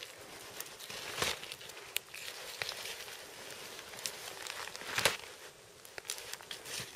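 Close crackling and rustling as a deer carcass is cut up on snow with a Mora Robust knife: the blade working through meat and membrane, with gloves, jacket and snow shifting. Two louder rustles come about a second in and about five seconds in.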